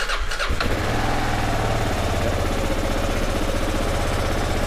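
Kawasaki KLR 650 single-cylinder four-stroke engine being started on the electric starter. It catches within the first second and then runs steadily. It is running on a CDI unit swapped in from a non-running bike, which shows that CDI is good.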